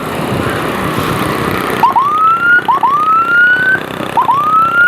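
Electronic escort siren sounding three whoops, each a quick double chirp followed by a pitch that rises for about a second. Engine and road noise run underneath, alone for the first couple of seconds.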